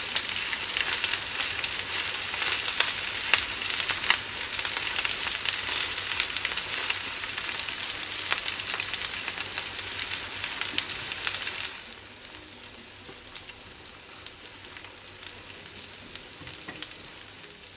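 Two masala-coated red snapper shallow-frying in coconut oil, sizzling with dense crackling spatter. About twelve seconds in, the sizzle drops suddenly to a quieter crackle.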